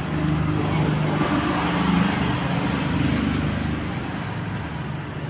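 An engine running steadily with a low hum that slowly fades toward the end.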